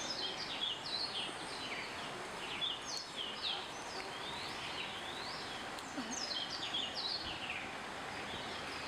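Small birds chirping in quick, overlapping calls, many short rising and falling notes, over a steady rush of falling water.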